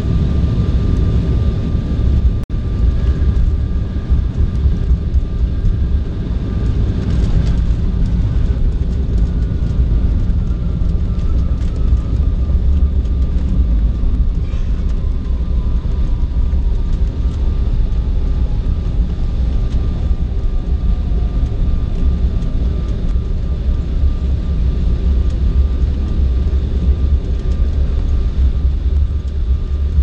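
Cabin noise inside an Embraer 190 rolling on the ground after landing: a steady low rumble of the wheels and airframe, with a steady high tone and the GE CF34 engines' whine slowly falling in pitch as they spool down.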